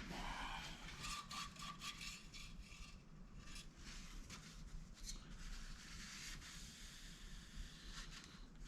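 Faint, irregular rubbing and scraping of parts and tools being handled.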